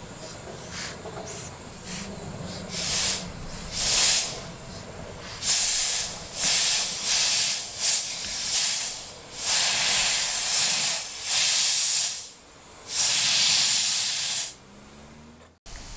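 Narrow-gauge steam locomotive working its train, letting out steam in about a dozen loud, uneven bursts of hiss, some short and some over a second long.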